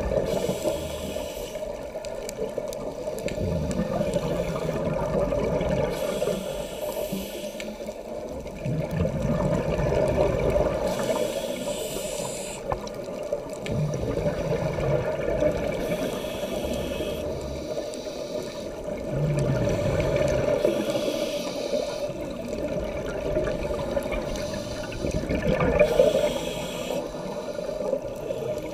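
Scuba regulator breathing underwater: exhaled air bubbles rush and gurgle out in bursts about every five seconds over a steady low underwater rumble.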